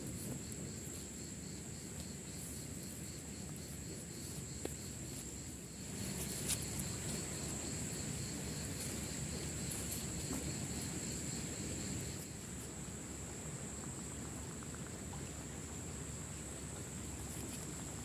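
Insects singing in a steady, high-pitched drone, over a low, even outdoor rumble.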